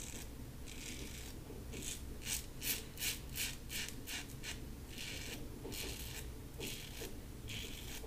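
LASSCo BBS-1 stainless steel safety razor with a Gillette Silver Blue blade rasping through lathered stubble in short strokes, with a quicker run of about seven strokes in the middle.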